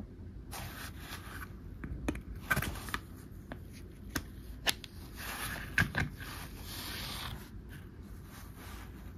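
Small hard plastic toy parts handled and rubbed together, with several sharp clicks as a seesaw arm is pressed onto its base peg.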